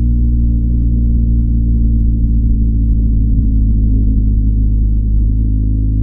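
BMW R1250GS boxer-twin engine through its stock exhaust, running at a steady cruising speed with an even, deep drone.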